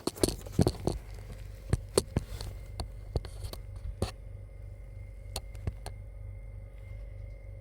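Scattered sharp clicks and taps, most of them in the first few seconds, over a steady low hum.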